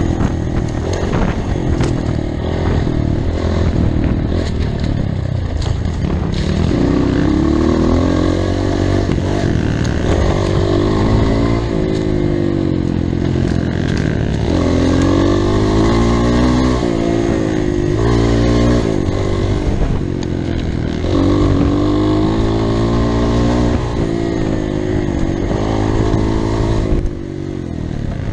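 Off-road motorcycle engine running hard, revving up and down over and over as the bike is ridden, its pitch climbing and dropping every few seconds, with a brief dip in level near the end.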